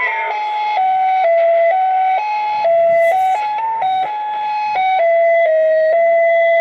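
Mr. Christmas climbing Santa toy playing a tinny electronic Christmas tune: a simple melody of single beeping notes, changing about twice a second.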